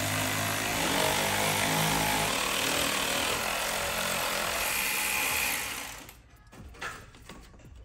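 Cordless power tool running steadily while backing out a bolt on the passenger-side exhaust manifold, then stopping about six seconds in.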